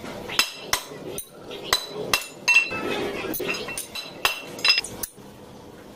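A steel rod being bent around a round metal jig by striking it with a rubber sandal: about a dozen sharp metallic clinks with a short ring, roughly two a second, stopping about five seconds in.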